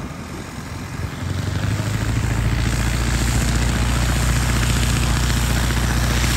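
Steady drone of a propeller aircraft engine, growing louder about a second in and then holding at one pitch.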